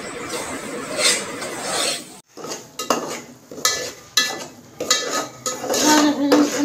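Metal slotted spoon scraping and stirring semolina around the bottom and sides of a steel pot in repeated strokes as the semolina is roasted for halwa. The sound drops out briefly about two seconds in.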